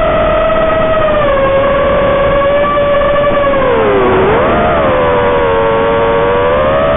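FPV quadcopter's motors whining over a steady hiss, heard through the drone's own video feed. The pitch drifts with the throttle, dipping sharply and rising again about four seconds in.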